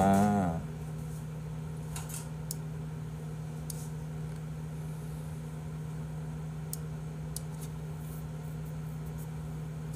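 A steady low hum with a few faint, scattered clicks, after a brief wavering sound at the very start.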